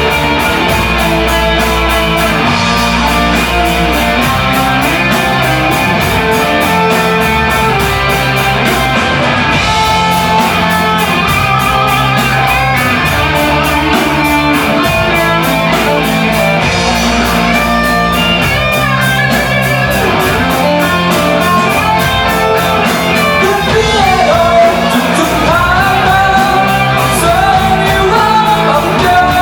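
Live rock band playing an instrumental passage of the song, guitars over bass and drums, with a lead line bending in pitch near the end.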